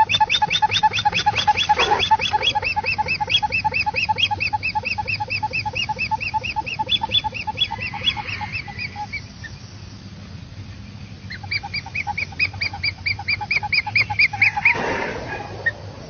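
Hornbill giving a rapid, cackling run of short pitched notes, about seven a second. The call fades out about nine seconds in and starts again, higher, a couple of seconds later. A brief rustle comes near the end.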